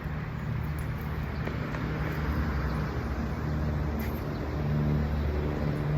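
Steady low engine hum of a road vehicle, getting a little louder in the second half.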